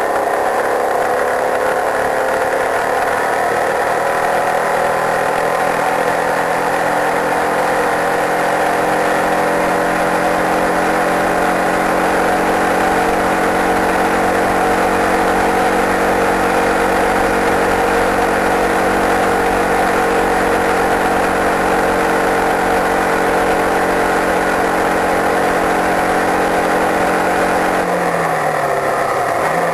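Open-wheel racing car's engine heard onboard at speed. Its pitch climbs over the first few seconds, holds steady for a long stretch, then drops sharply near the end, with a rushing hiss over it throughout.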